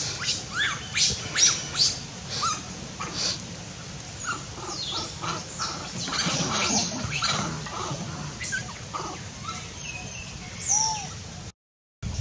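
Animal calls: a string of short, sharp, high chirps and squawks, thickest in the first two seconds, with a brief clear whistle near the end.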